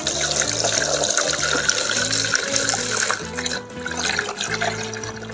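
Water pouring from a plastic jug into a plastic toy sink basin: a steady splashing pour that thins out after about three seconds.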